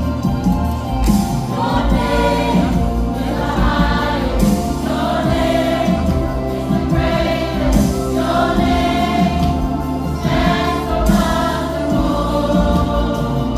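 A mixed choir of children and adults singing a gospel hymn together, over steady held low accompanying notes.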